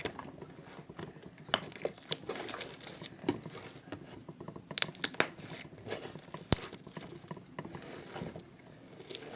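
Hands working slime: irregular crinkling and crackling with scattered sharp clicks, the loudest a single click about six and a half seconds in.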